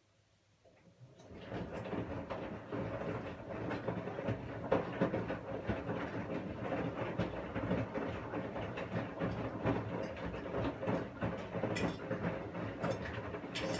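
Washing machine starting up about a second in, then running steadily with a busy clatter of many small knocks.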